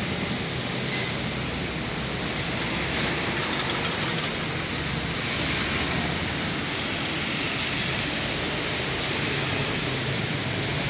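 Steady road traffic noise, with a faint high whine about halfway through and again near the end.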